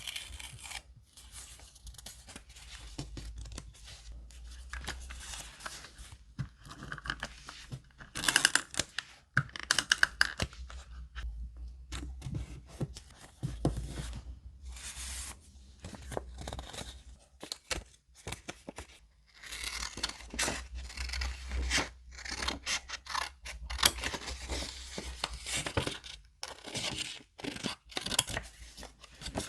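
Paper being handled, torn and cut for a scrapbook journal, in close, uneven rustling and tearing strokes, with a run of louder ones about a third of the way in.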